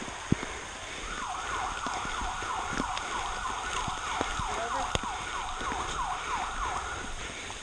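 Electronic siren sounding in rapid falling sweeps, about three a second, starting about a second in and stopping near the end. Two or three sharp clicks are also heard.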